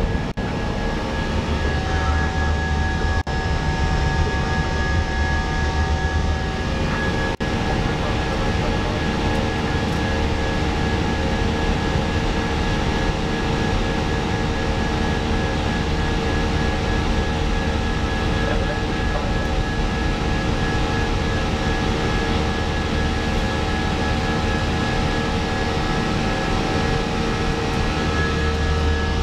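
Steady cabin noise in an Airbus A319 cockpit during the climb after takeoff: a low rumble and an even rush of airflow, with a few steady whining tones running through it.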